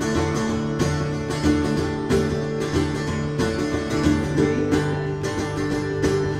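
Instrumental passage of a folk song: acoustic guitar and other plucked strings strummed in a steady beat.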